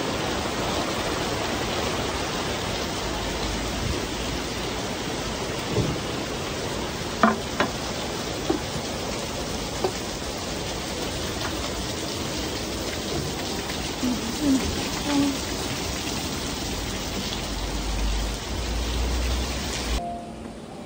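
Rain falling steadily, with a few sharp taps of drops here and there; it cuts off suddenly near the end.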